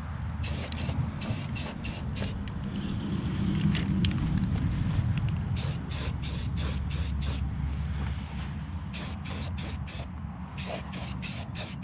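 Short bursts of spray hissing, a few a second in runs, from an air-fed spraying or blasting tool working on the metal toolbox, over a steady low rumble.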